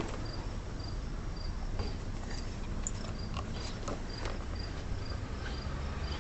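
A cricket chirping steadily, short high chirps about twice a second, with a few faint scattered clicks and rustles over a low steady background rumble.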